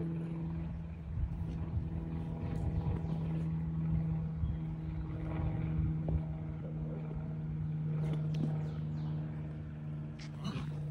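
A motor running steadily at one unchanging pitch, with a few faint knocks and scuffs over it.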